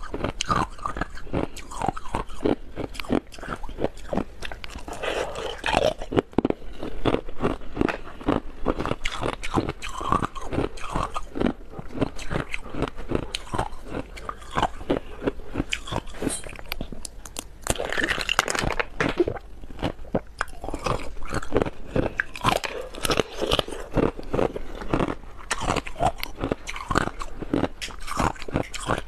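Ice being bitten and chewed right at a clip-on microphone: a dense, continuous run of sharp crunches and cracks as chunks and balls of coloured ice break between the teeth.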